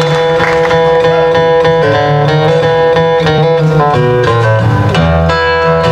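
Acoustic guitar playing the instrumental intro of a bluegrass song: picked notes over chords that change every second or so.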